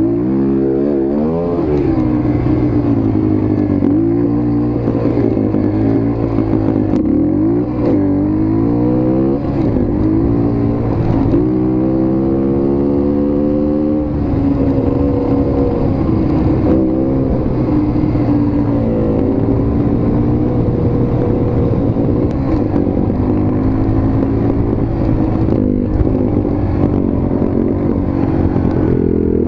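Motorcycle engine running under way, revving up and easing off several times in the first half, then holding a steadier note with a couple of brief dips.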